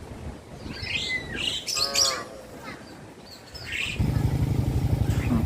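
Small birds chirping, with a short cow call about two seconds in. About four seconds in, an engine starts running with a rapid, even low beat that is louder than everything before it.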